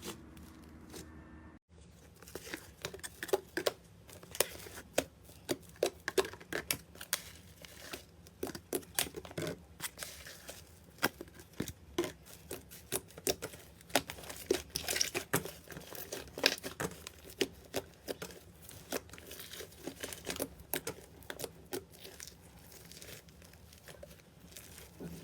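Slime being played with, giving a dense, irregular stream of small crackles, pops and squelches. The sound breaks off briefly about two seconds in, then carries on.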